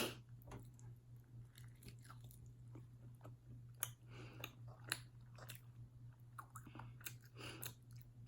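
Quiet close-up chewing of a sauce-coated fried chicken wing: wet mouth smacks and small crunches of the breading, with a few sharper clicks, over a faint steady low hum.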